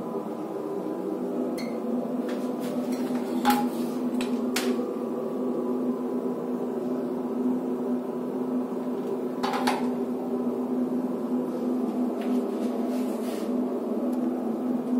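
A steady machine hum with a few sharp clicks and knocks, about three and a half seconds in, a second later, and again near ten seconds.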